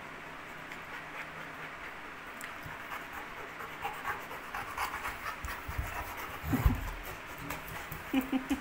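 An adult dog and a puppy play-fighting: panting and scuffling, with claws and bodies scratching on a hard floor. There is a single low thump about six and a half seconds in.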